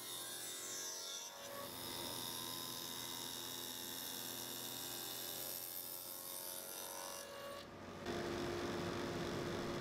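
Contractor table saw running while a glued-up 4x4 blank is fed through the blade, cutting a rabbet along one corner. About eight seconds in the sound changes to a steadier hum.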